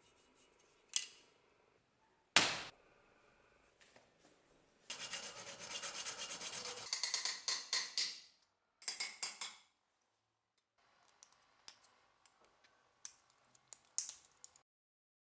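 Small hand tools scraping and rubbing on the metal parts of an old gasoline blowtorch, with a few sharp clicks. A steady rubbing stretch gives way to runs of quick scraping strokes. Near the end, scattered scratches and clicks come from a pointed tool picking at a dried-out rubber seal.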